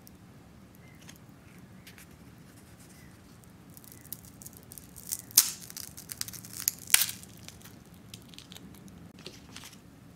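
Crisp monaka wafer shells crackling as they are handled and pressed together, a run of dry crackles from about four seconds in, with two sharp, loud cracks about a second and a half apart.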